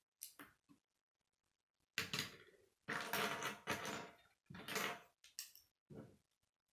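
Plastic K'nex pieces clicking and clattering as hands snap connectors and rods together and rummage through a loose pile of parts on a wooden table. A few light clicks, then a stretch of longer rattling from about two seconds in to about five seconds in, and more clicks near the end.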